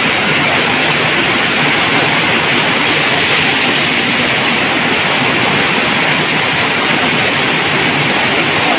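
A steady, loud hiss with no change in level throughout.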